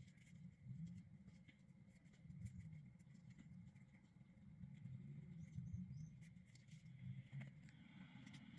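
Near silence with faint rustling and light ticks as fingers press and smooth glued ribbon onto a headband.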